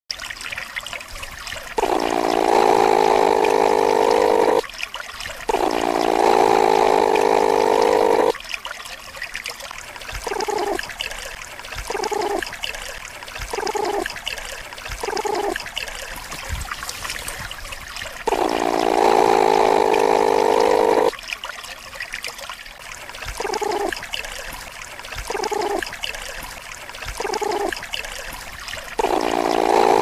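Platypus calls offered as a sound effect. Long rough calls of about three seconds, the first two in a pair, alternate with runs of short calls repeating about every second and a half, over a steady hiss.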